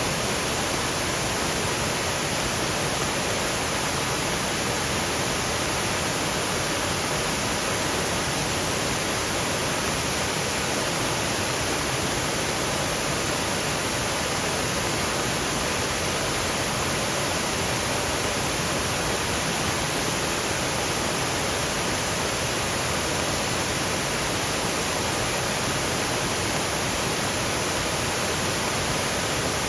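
Waterfall rushing steadily over rocky ledges, an even, unbroken wash of water noise, with light rain falling through the surrounding trees.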